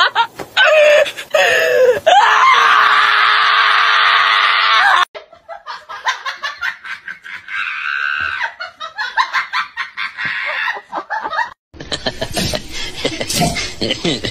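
A small dog, held down, screams loudly and shrilly for about five seconds. Then another dog yowls in quieter whines, and near the end comes a quick run of short sounds as two dogs face off.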